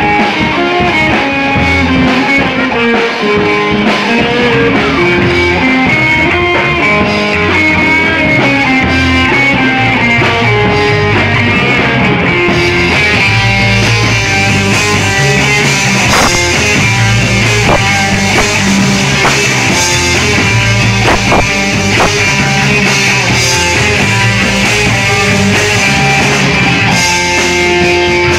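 Live rock band playing: electric guitar over a drum kit, the sound growing fuller and brighter about twelve seconds in.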